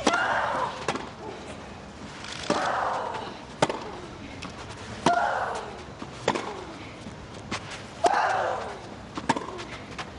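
A tennis rally on clay: a sharp crack of racket strings on the ball every second or so. On about four of the shots, roughly every two and a half seconds, the hitter lets out a loud drawn-out shriek that falls in pitch.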